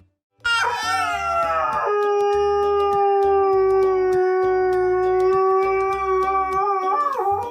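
A dog howling: one long howl that starts high, slides down over its first second or so, then holds a steady pitch for about five seconds before wavering and breaking off near the end.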